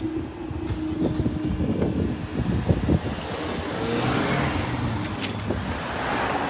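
Road traffic at a level crossing: cars pull away and drive across once the barriers have lifted, their noise building from about three seconds in. This follows a low, uneven clattering rumble in the first few seconds.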